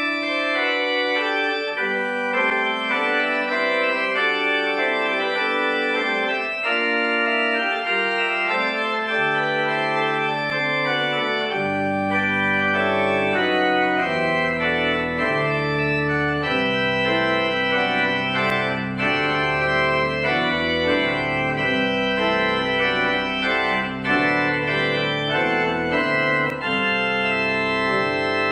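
Church organ playing the postlude in sustained, changing chords; deep pedal bass notes come in about twelve seconds in.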